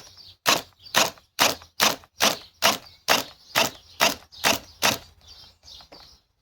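Ridgid high-torque cordless hammer drill jolting in short, sharp bursts, about a dozen at two to three a second, stalling against a stuck fastener as its protection keeps cutting the motor out ('timing out').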